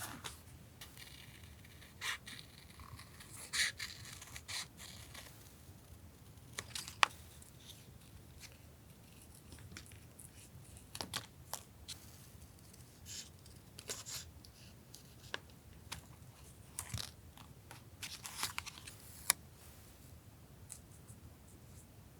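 Paper, stickers and other collage materials being handled in journal decorating: irregular crinkles, soft rustles and small taps, with longer rustling spells near the start and again near the end.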